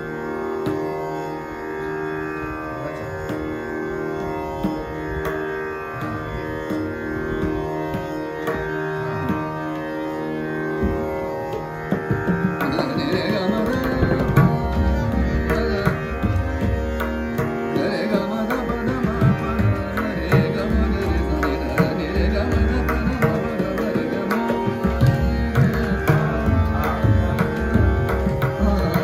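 Harmonium playing sustained melodic notes in a Hindustani classical accompaniment. About twelve seconds in, tabla joins with quick strokes and deep bass thumps from the bayan.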